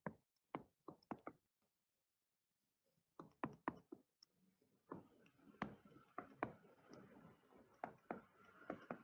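Faint sharp taps and clicks of a stylus striking a tablet screen during handwriting, coming in short clusters of several taps.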